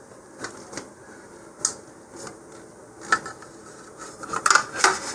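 Scattered light clicks and knocks from hands handling a fiberglass body tube and a plastic angle guide on a cutting mat, with a quick cluster of taps near the end as the guide is seated against the tube.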